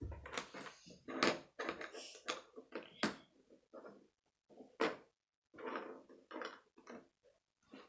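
Small plastic Lego bricks clicking and clattering as pieces are picked out of a loose pile on the table and pressed together, a string of short irregular clicks and taps.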